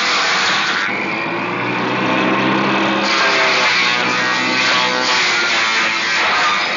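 Table saw with a dado blade shredding cardboard, its noise mixed with guitar music.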